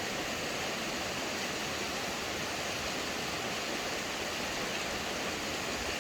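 Light rain falling in a steady, even hiss, with no thunder or single drops standing out.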